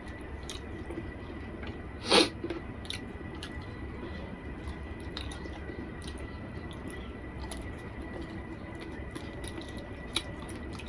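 A person chewing soft, wet food with small mouth clicks, and one louder wet smack about two seconds in.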